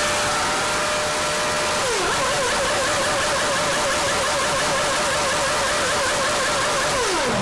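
Renault R26 Formula One car's 2.4-litre V8 engine held at high revs for about two seconds, then blipped rapidly up and down about three times a second, with the revs falling away quickly near the end.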